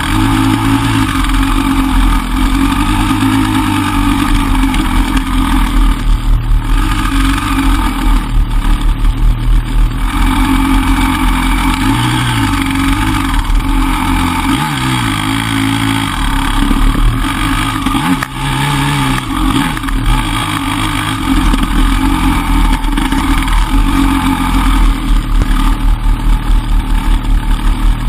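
Enduro dirt bike engine running close to the microphone, revving up and dropping back again and again, with stretches of rapid throttle pulsing.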